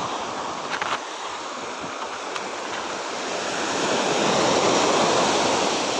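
Sea surf washing steadily at the shore, swelling louder about four seconds in, with a couple of faint clicks about a second in.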